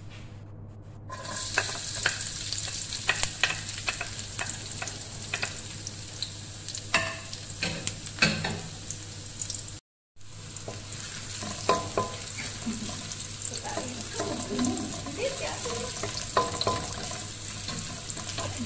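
Diced onion sizzling and crackling in hot oil in a wok, starting about a second in, with a wooden spoon stirring and scraping through it. There is a brief silent gap just before the middle.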